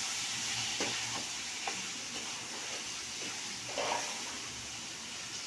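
Food frying in a pan with a steady sizzle while a spoon stirs it, scraping against the pan a few times. Salt and ground spices are being mixed into the frying base.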